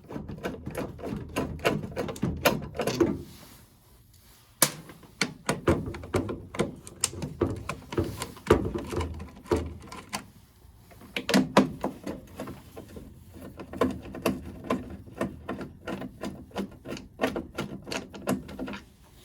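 Clicks, knocks and rattles of hands and tools working at a furnace's draft inducer housing, whose fan is jammed by something lodged inside. There are short lulls about four and ten seconds in.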